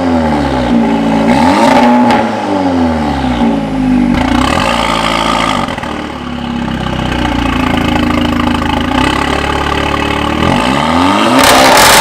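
Volkswagen Golf R's turbocharged four-cylinder engine revving through an aftermarket downpipe and Borla cat-back exhaust: a few quick blips up and down, a steadier stretch at raised revs, then a sharp climb to a louder, harder rev near the end.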